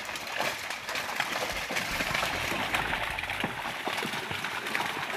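Fish thrashing in a drag net pulled into shallow water, making rapid, irregular splashing.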